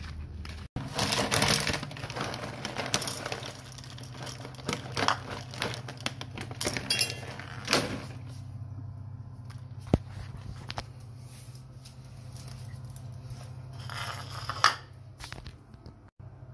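Irregular crinkling and rustling of handled packaging and dishes, with one sharp click about ten seconds in, over a steady low hum.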